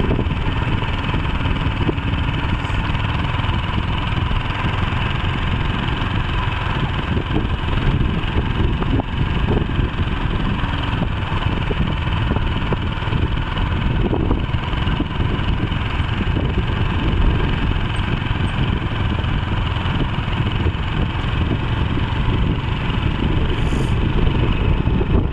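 Small engine running steadily, with a constant low rumble.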